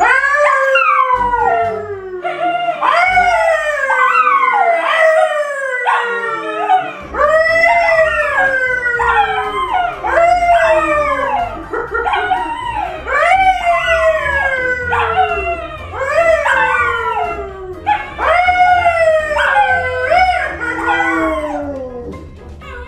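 A man howling and two dogs, a yellow Labrador retriever and a brown poodle, howling along with him. Several long howls overlap, each falling in pitch, one after another.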